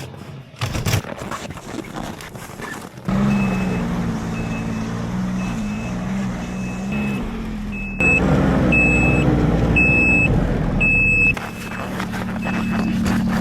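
A Ski-doo Expedition's 900 ACE three-cylinder four-stroke engine starts about three seconds in and runs, with a short electronic beep repeating a little faster than once a second: the snowmobile's reverse beeper. The engine revs up and the beeping grows louder for about three seconds near the middle, then the engine drops back to idle. Before it starts there is some clattering handling noise.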